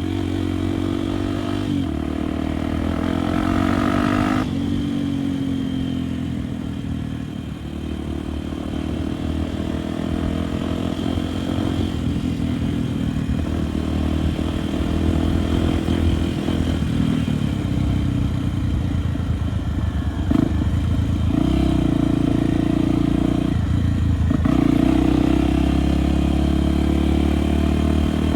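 Single-cylinder four-stroke enduro motorcycle engine, a Honda Tornado, running under load off-road. Its pitch rises and falls as the throttle is rolled on and off, it eases back briefly about seven seconds in, then pulls harder again.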